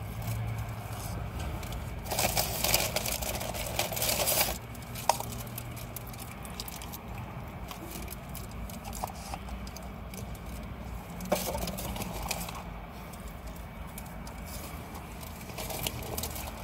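Food packaging rustling and crinkling as someone eats with their fingers, loudest in a burst of about two seconds near the start and again briefly later, with a sharp click in between. A steady low hum runs underneath.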